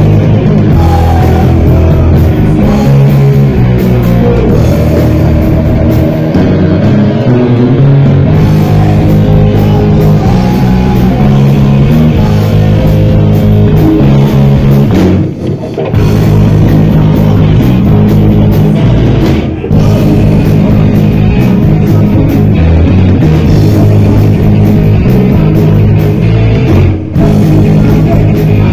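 Live heavy metal band playing loud: electric guitars, bass and drum kit, with two short stops, one about halfway through and one near the end.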